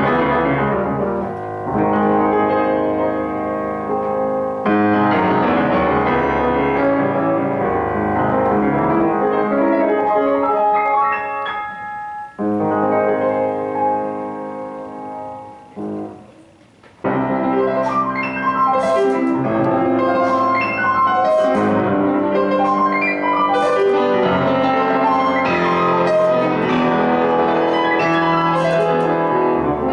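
Grand piano played solo, with full chords and running passages. About halfway through the playing thins and grows quiet for a few seconds, then comes back loud with bright high notes.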